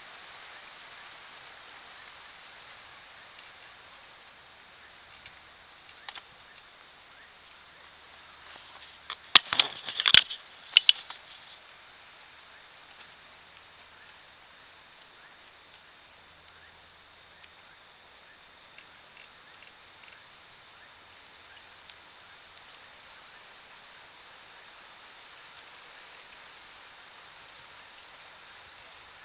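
Steady high-pitched insect trill over soft outdoor hiss. A brief flurry of loud sharp clicks and knocks comes about nine to eleven seconds in.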